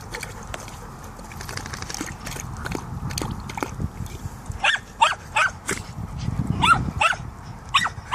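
A dog laps at a metal water bowl, making a run of quick wet clicks. From about halfway it gives a series of short, high yips and whines as it plays.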